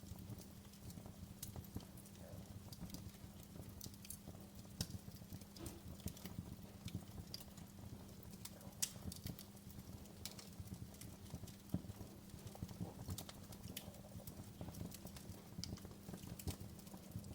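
Wood fire crackling in a fireplace: irregular small pops and snaps over a low, steady background rumble.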